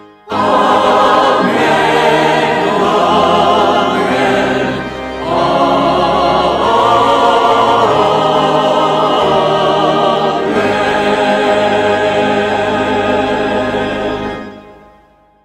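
Mixed choir of men's and women's voices singing together, starting abruptly, with a brief break about five seconds in, and fading out near the end.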